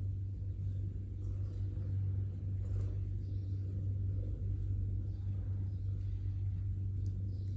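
A steady low hum, with a couple of faint clicks about three seconds in and near the end.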